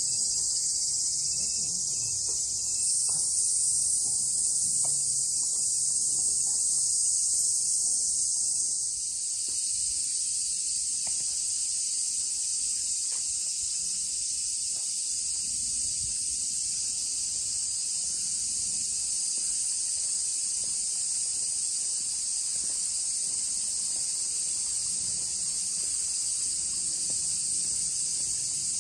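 Chorus of cicadas, a steady high-pitched drone.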